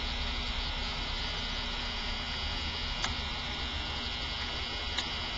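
Steady electrical hum, with two faint clicks, one about three seconds in and one near the end.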